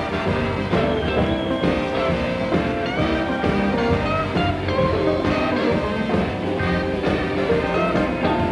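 Live blues band playing a full-band jam, with electric guitar.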